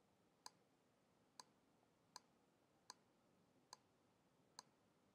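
Six faint, sharp computer mouse clicks at an even pace, about one every 0.8 s, over near silence.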